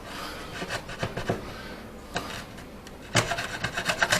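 Wood chisel paring a wooden tenon: short scraping cuts, with a quick run of strokes about three seconds in.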